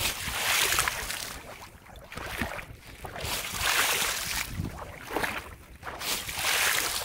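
Repeated splashing of a foot kicking through shallow flooded rice-field water, a surge of splash about every one and a half to two seconds. The kicks are made to startle climbing perch into fleeing.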